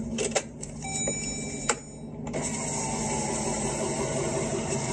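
Engine and road noise heard inside the cabin of a Jeep Grand Cherokee Trackhawk (supercharged 6.2-litre V8). A few light clicks and a faint tone come in the first two seconds, then from about two seconds in the running becomes a steadier, louder hum.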